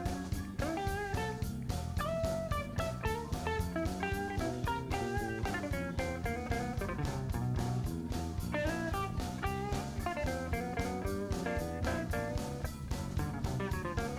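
Blues-rock band playing live: an electric guitar plays a lead melody over bass guitar and a drum kit keeping a steady beat.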